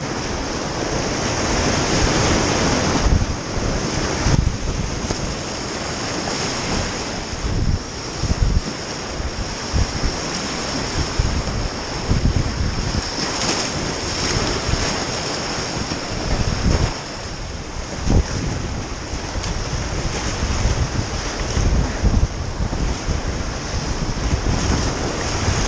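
Whitewater rapids rushing and splashing around an inflatable kayak, with the river running high at about 5500 cfs. Irregular low thumps and gusts of wind buffet the camera's microphone throughout.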